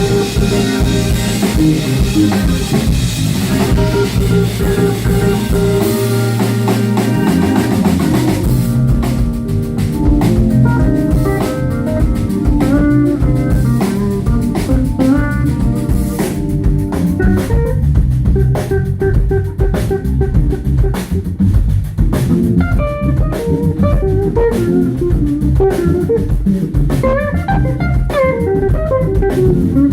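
Live band playing at a sound check: drum kit, bass and guitar, with a lead guitar's notes sliding up and down in pitch. A wash of cymbals drops away about a third of the way in.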